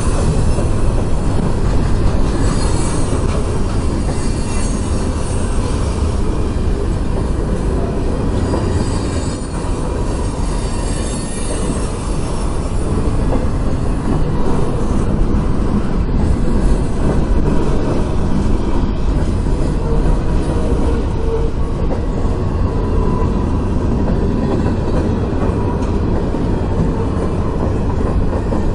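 Freight cars rolling past close by: a steady, loud rumble of steel wheels on the rails, with high wheel squeal heard over the first half.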